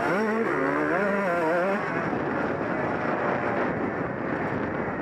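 Honda CR125 two-stroke motocross engine under way, revving up and down in pitch over the first couple of seconds, then running on with a rougher, less pitched sound.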